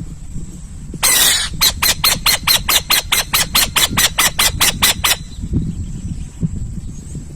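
An owl calling: a harsh, raspy burst about a second in, then a run of about sixteen short screeching notes at roughly four a second that stops after about four seconds. A low rumble runs underneath.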